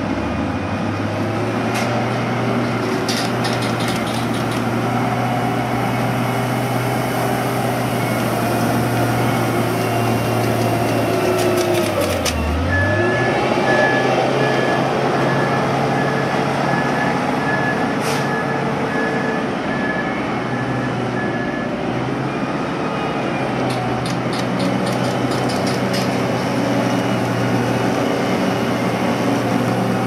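BearCat chip spreader's diesel engine running steadily as the machine works along the road, its speed dipping and picking back up about halfway through. Just after the dip, a backup alarm beeps steadily for about nine seconds. Short spells of clicking come near the start and near the end.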